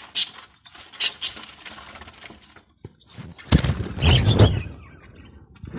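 Budgerigars chirping in short high bursts, then a louder flurry of wing flapping about three and a half seconds in.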